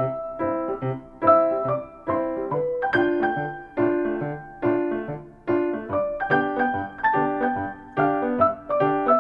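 Piano music: chords struck in a steady rhythm with a melody over them, each note fading between strikes.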